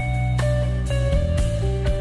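Live rock band playing an instrumental passage: an electric guitar picks a slow line of single ringing notes, a new note about every half second, over a steady low backing.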